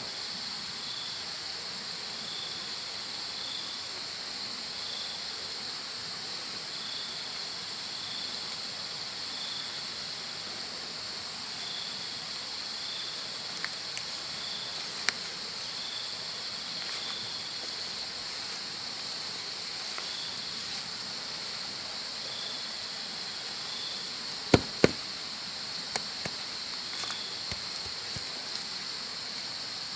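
Steady insect chorus: a constant high buzz, an evenly pulsing trill above it, and a softer chirp repeating about once a second. A few sharp clicks stand out, the loudest two close together near the end.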